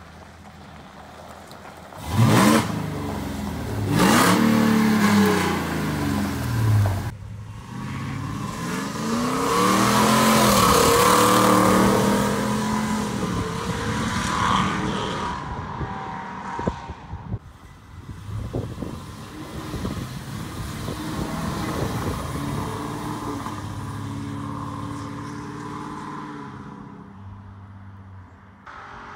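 2020 Ford F-250's 7.3-litre gas V8, fitted with American Racing headers and no resonator into the stock muffler, accelerating hard from about two seconds in. The engine note climbs, breaks off briefly about seven seconds in, climbs again as the truck drives past, then fades away slowly.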